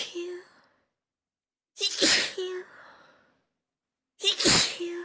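A person sneezing over and over, brought on by sniffed chhinkni sneezing powder: the end of one sneeze at the start, then two full sneezes about two and a half seconds apart. Each is a sharp burst trailing off in a brief vocal note.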